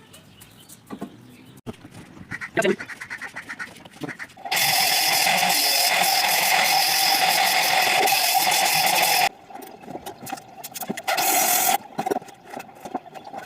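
Electric woodworking power tool running at full speed on wood for about five seconds, then in shorter bursts of about a second, after a stretch of light tapping and scraping.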